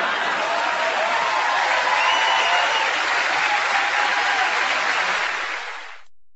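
Studio audience applauding, fading away near the end.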